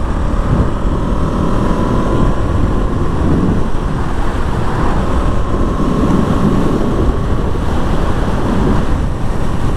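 Wind rushing over a GoPro's microphone on a moving KTM Duke motorcycle, with the engine running underneath and a faint steady whine.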